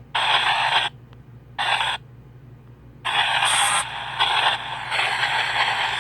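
PXB 07 spirit box sweeping through radio frequencies: hissing static that cuts in and out abruptly, dropping to quiet gaps about a second in and again a little past two seconds. A steady low hum runs underneath.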